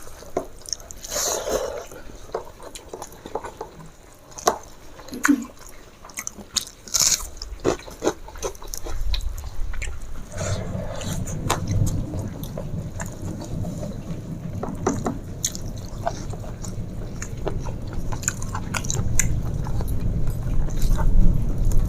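Close-up eating sounds of people eating rice and chicken curry by hand: chewing, lip smacks and small sticky clicks. From about ten seconds in a low rumble rises underneath and keeps on.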